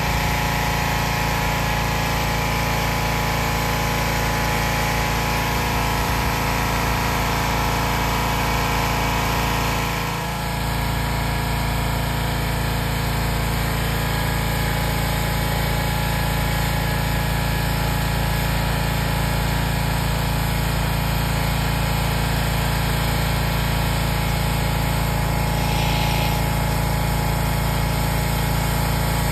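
A pressure washer's small gasoline engine running steadily, with a brief dip in level about ten seconds in.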